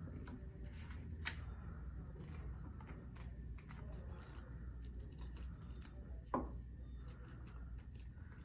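Small clicks, taps and crinkles of medical supplies being handled on a tray table, over a steady low room hum, with one louder short scrape or squeak a little past six seconds in.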